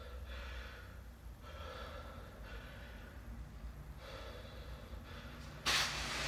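A man breathing hard between heavy sandbag lifts: loud in-and-out breaths about once a second, with a sudden much louder forceful exhale near the end.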